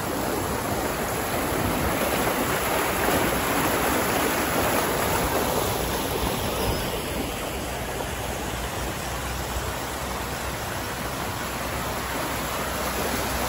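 Steady rush of running water pouring down the water slides.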